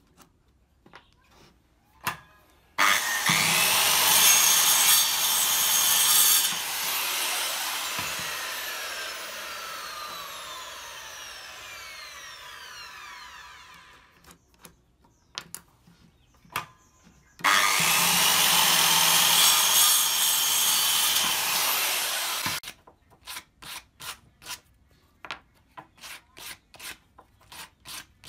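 A handheld electric circular saw makes two crosscuts through a wooden strip. After the first cut the blade whines down slowly for several seconds. The second cut ends abruptly, and it is followed by quick, regular strokes of sandpaper rubbing on a small wooden block, a couple of strokes a second.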